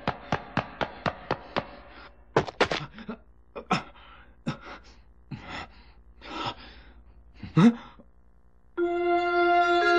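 Animated soundtrack: a quick run of regular taps, about three or four a second, stops after about two seconds. It is followed by a series of pained gasps and groans from a badly wounded man, with one louder rising cry near 7.5 s. Music with sustained held tones comes in near the end.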